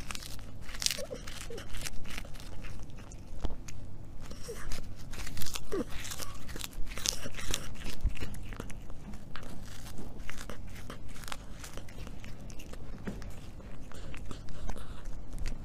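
A cat biting and crunching on a small hard snack held in its paws, with irregular crunches throughout.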